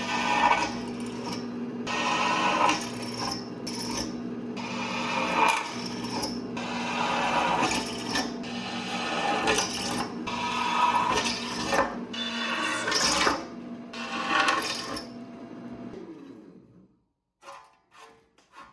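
Vevor 12-inch benchtop drill press running at a lowered speed, its motor humming steadily while an old, worn drill bit cuts through steel plate in repeated bursts about every one to two seconds. The motor winds down and stops about sixteen seconds in.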